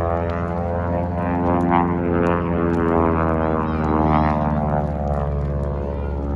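An engine running steadily: a deep, droning hum with many overtones, its pitch wavering slightly.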